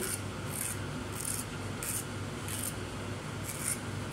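Kitchen knife blade scraping the skin off a zucchini, a short rasping stroke repeated about every two-thirds of a second.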